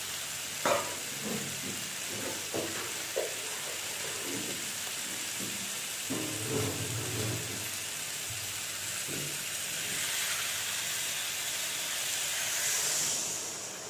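Potato, pointed gourd and brinjal pieces frying in oil and tomato masala in a metal kadai: a steady sizzle, with a few scrapes and knocks of a steel spatula against the pan. Near the end the hiss swells louder and then dies down as water goes into the hot pan.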